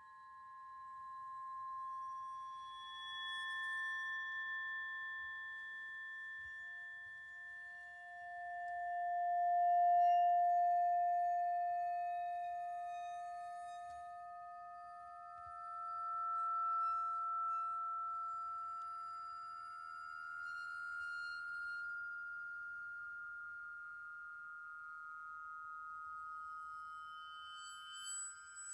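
Vibraphone bars and crotales bowed, giving long, pure sustained tones that enter one after another and overlap, built up into layers by live looping. A few short high tones sound near the end.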